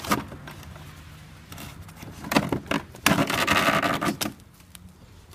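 Old paper air filter element being pulled out of a plastic airbox: a sharp click at the start and a few light knocks, then, about three seconds in, just over a second of loud scraping and rustling as the filter rubs out past the housing.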